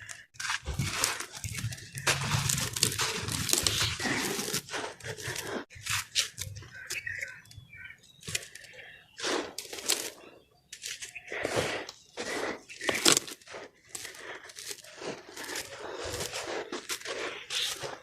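Yellow sand-cement block being crumbled into soft, crunchy chunks: an irregular run of crunches with some sharper cracks.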